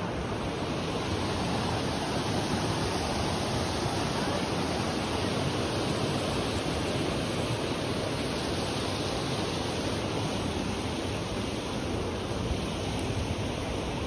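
Mountain river rushing over a rocky bed: a steady, even rush of water.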